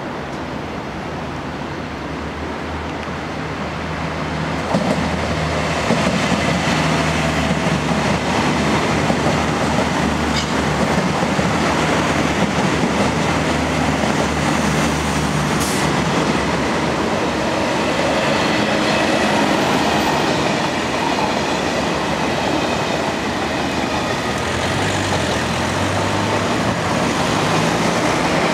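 Electric passenger trains passing close by on a multi-track line, a regional TER unit and then a double-deck TGV: a steady rumble of wheels on rails with a low motor hum, louder from about four and a half seconds in.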